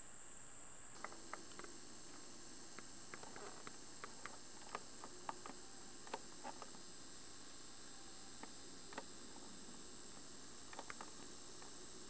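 Steady hiss with a constant high whine from an 8mm camcorder recording, with faint, short ticks scattered irregularly from about a second in.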